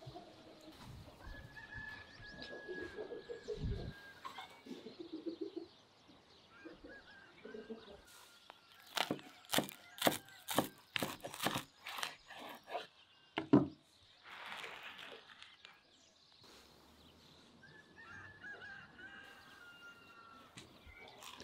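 Birds calling, farmyard fowl among them. About halfway through comes a run of about ten sharp knocks, the last one the loudest.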